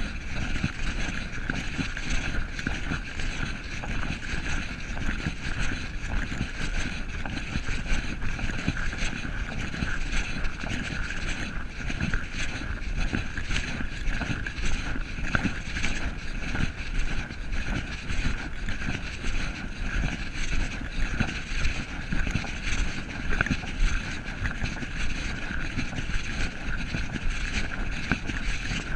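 Rumbling wind and handling noise on a camera carried by someone walking, with a steady hiss over it.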